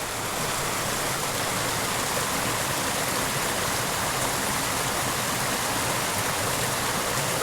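Small mountain creek rushing steadily, a constant wash of running water.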